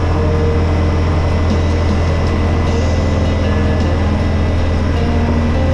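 Yamaha Wolverine utility vehicle's engine running steadily while driving, a constant low drone with road and wind noise.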